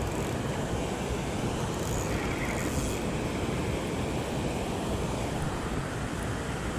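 Steady rumbling noise of wind buffeting the microphone: an even hiss with a low flutter and no distinct events.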